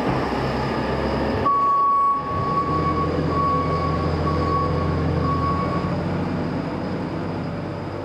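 JCB telehandler's diesel engine running steadily. Over the first second and a half the engine is joined by loose material pouring from its bucket. After that, a high beeping tone with short breaks sounds until about six seconds in.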